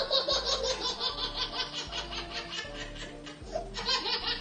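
A baby laughing in quick repeated bursts over background music.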